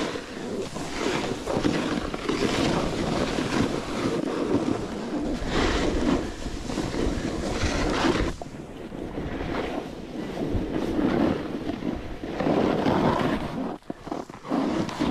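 Snowboard edge scraping and sliding over snow in repeated surges, with wind buffeting the microphone.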